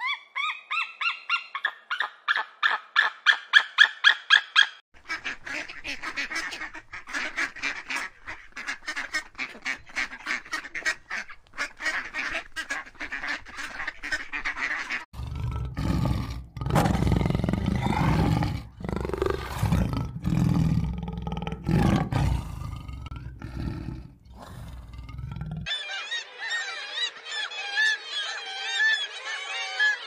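A white-tailed eagle giving a fast series of yelping calls, then a quicker, quieter run of chattering calls. About fifteen seconds in, a cheetah snarls and growls for about ten seconds. Near the end a colony of black-legged kittiwakes calls.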